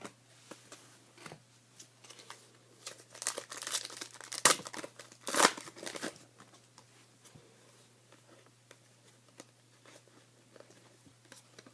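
Foil wrapper of a trading-card pack being torn open and crinkled, with a cluster of rips and crinkles in the middle, the loudest a little after four and five seconds in, and faint scattered ticks before and after.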